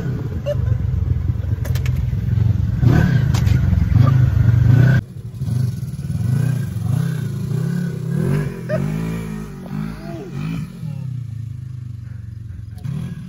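Engine of an off-road vehicle: a loud, steady rumble for about five seconds that cuts off abruptly. Then a Polaris RZR XP 1000 side-by-side drives off across grass, its engine revving up and down several times and fading.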